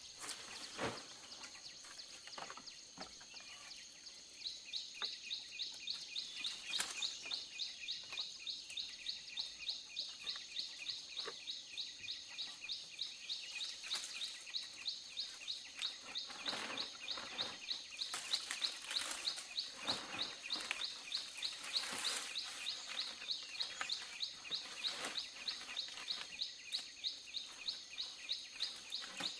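Outdoor forest ambience: a steady high-pitched insect drone with a rapid, evenly repeated high chirping that starts about four seconds in, and occasional sharp knocks.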